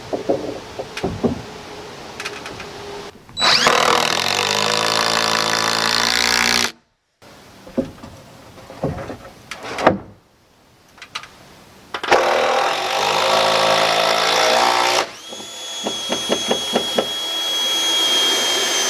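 Power screw gun driving screws in three long runs, each a steady motor whine. The second and third runs follow each other closely, the pitch changing between them, with scattered knocks and clicks in the pauses.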